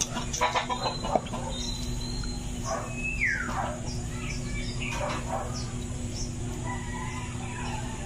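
Chickens clucking and calling, with one falling call about three seconds in, over a steady low hum.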